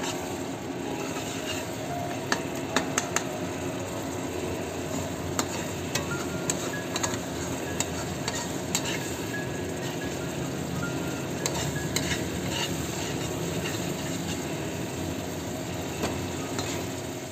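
Onion-and-spice masala sizzling in a kadai while a perforated steel spoon stirs and scrapes it, with scattered taps of the spoon on the pan and a cluster of sharper clicks about two to three seconds in. The masala is being fried down until its oil separates.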